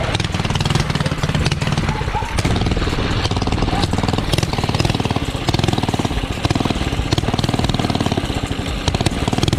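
Mini bike's small gasoline engine running while it is ridden, a loud, steady, rapid putter of firing strokes heard from the rider's seat.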